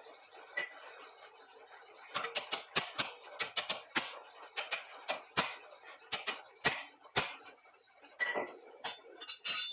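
Metal parts and tools clinking and knocking against each other: a quick, irregular run of sharp clicks that starts about two seconds in.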